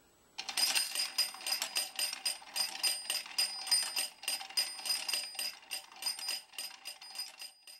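Cast-iron Organ mechanical bank, a reproduction of the Kyser & Rex design, being cranked: a rapid clatter of clicks from its mechanism with a bell ringing along with it, starting about half a second in and running on without a break.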